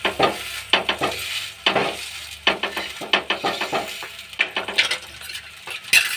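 Opened puff pastry patty warming on a hot frying pan: light sizzling with irregular crackles and clicks as it is pressed down by hand.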